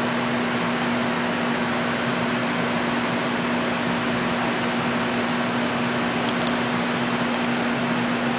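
Electric floor fan running on power from a portable battery power pack's inverter: a steady rush of air with a steady low hum under it.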